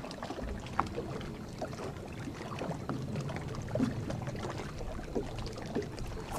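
Boat on open water: a steady low rumble of wind and water against the hull, with scattered small clicks and knocks.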